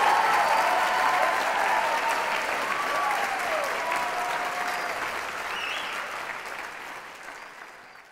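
Audience applauding, with a few cheers rising and falling above the clapping. The applause fades out steadily toward the end.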